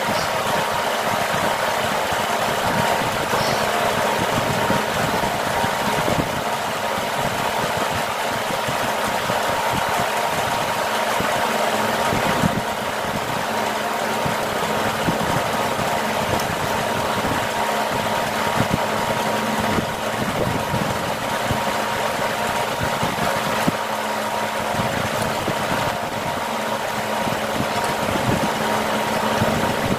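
Steady mechanical hum of a running motor, even in level, with small irregular clicks throughout.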